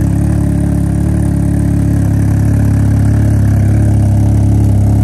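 Can-Am Ryker engine idling loudly and steadily through an aftermarket Brandon King exhaust that replaces the stock muffler and catalytic converter.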